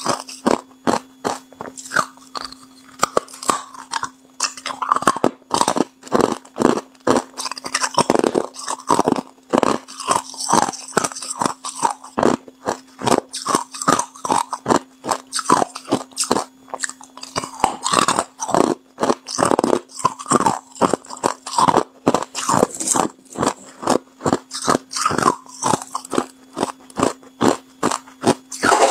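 A person biting and chewing hard clear ice: a continuous run of sharp, brittle crunches, about three a second.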